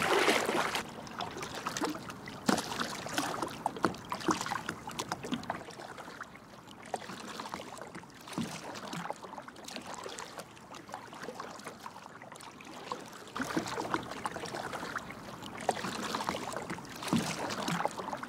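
Shallow stream water sloshing and trickling, with many small irregular splashes and drips.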